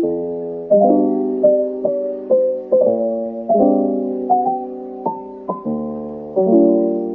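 Background piano music: a slow melody of struck notes, each ringing and fading, over held lower notes.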